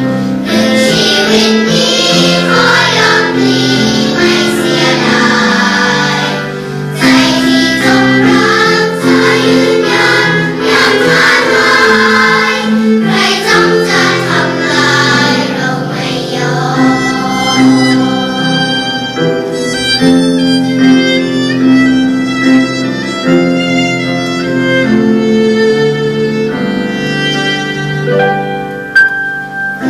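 A children's choir singing a Thai song in unison with instrumental accompaniment. In the second half a violin plays clear, held melody notes alongside the voices.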